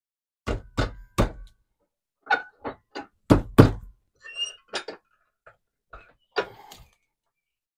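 Sharp knocks and thunks on a wooden workbench as tools and a workpiece are handled. There are about eight hits in the first four seconds, one with a brief metallic ring, followed by lighter clatter and scraping.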